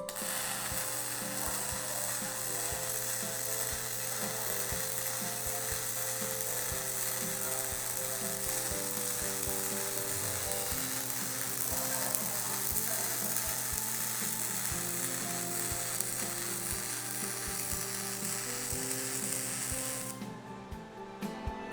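MIG welding arc from a MIG-230Plus welder: a steady, even crackling sizzle with many small pops over a low electrical hum, stopping about 20 seconds in.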